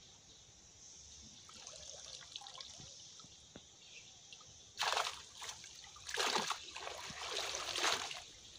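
Water splashing and running off a wet cast net as it is hauled up out of a pond: quiet trickling at first, then a few loud splashes from about halfway through.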